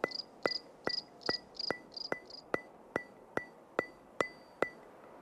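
Regular sharp ticks, about two and a half a second, each with a short ringing tone. High chirps sound between the ticks for the first half, and the ticks stop shortly before the end.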